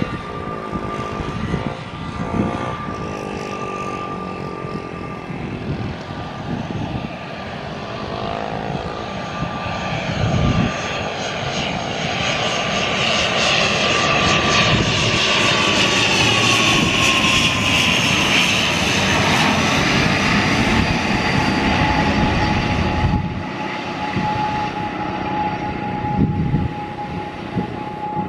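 ATR 72 twin-turboprop airliner on approach passing close by: the propeller and engine drone swells to its loudest in the middle. Its steady whine drops in pitch as the aircraft goes past.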